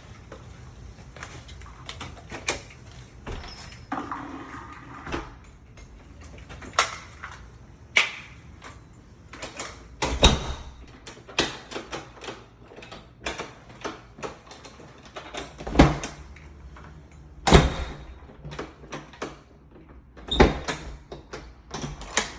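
A newly installed mortise lock and its door being worked by hand: a string of sharp latch and bolt clicks and knocks, with a few heavier thuds.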